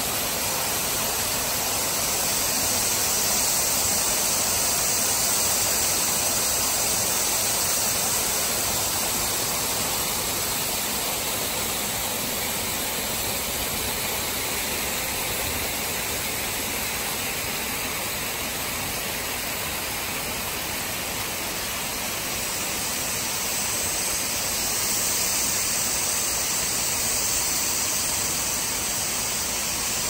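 Water from a small forest waterfall spilling down several cascades over rock ledges into shallow pools: a steady rushing splash, growing slightly louder a few seconds in and again near the end.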